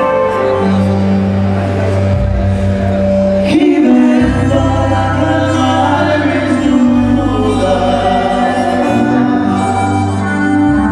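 Live bachata band playing with a singer, over a steady bass line, with a sharp accent about three and a half seconds in.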